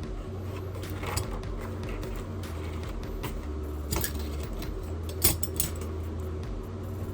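A few sharp metallic clicks and clinks of small metal parts and tools being handled on the workbench, the loudest a little past five seconds in, over a steady low electrical hum.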